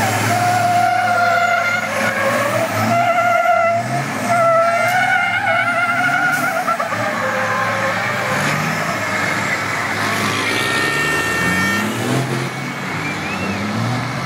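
Race trucks spinning doughnuts: tyres squealing in a wavering pitch over revving diesel engines. A horn sounds steadily for about a second and a half, roughly ten seconds in.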